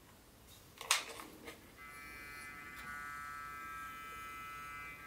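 Small electric motor of a Hornby OO-scale Flying Scotsman model locomotive running with a steady whine from about two seconds in. Just before it there is a sharp click about a second in, followed by a couple of lighter clicks.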